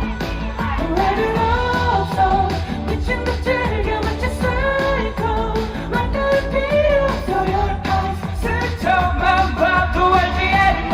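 Pop song with a male lead voice singing a melody over a full band backing with a steady, heavy beat.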